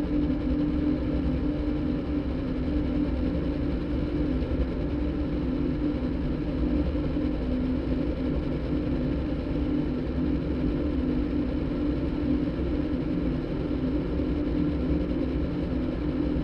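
Electronic drone made by cross-synthesizing a motorbike engine recording with a đàn bầu (Vietnamese monochord) concert recording. It is a steady, engine-like hum holding one strong low pitch over a rumble.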